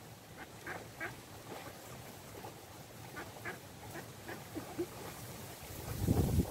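Ducks quacking faintly in a string of short calls, a few a second. A low rumble near the end.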